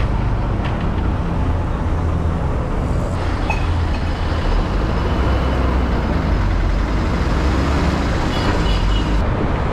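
City bus running along the road, heard from aboard: a steady low engine rumble mixed with road noise.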